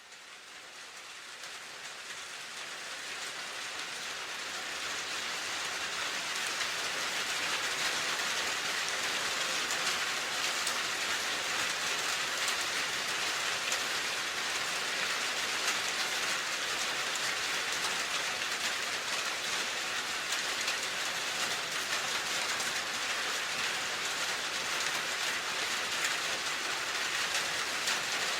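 Steady rain, a dense even hiss of falling drops, fading in over the first several seconds and then holding level.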